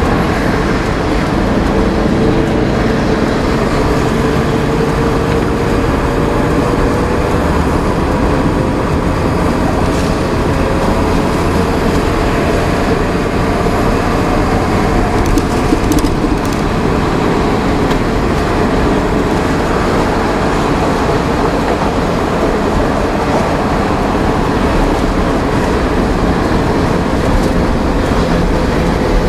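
Steady in-cab noise of a VW Worker 15-180 4x4 truck driving on a highway: the diesel engine running under road and tyre rumble, with a faint engine tone drifting slowly in pitch.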